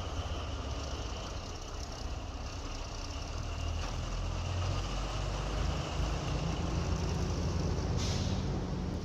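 Steady low mechanical rumble of a heavy motor, with a faint high whine and hiss over it; the low hum firms up and rises a little about two-thirds of the way in, and a short hiss comes near the end.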